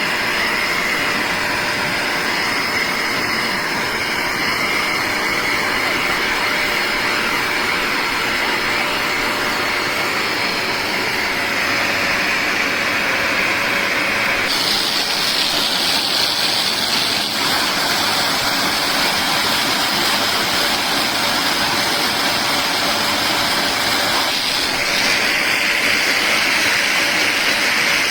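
BISSELL Little Green portable carpet and upholstery cleaner running, its suction motor giving a steady loud rushing whine. The whine steps up in pitch about halfway through and shifts again near the end.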